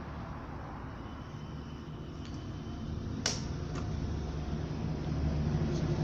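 Drean Excellent 166 front-loading washing machine running, its motor turning the drum and wet load with a steady low hum that grows louder in the second half, and a sharp click a little past halfway. The motor runs on a replacement capacitor and turns with more speed and force than it did with the old, failing one.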